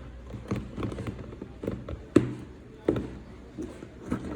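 Cardboard box and packaging being handled and opened: soft rustling and light taps, with two sharper knocks about two and three seconds in.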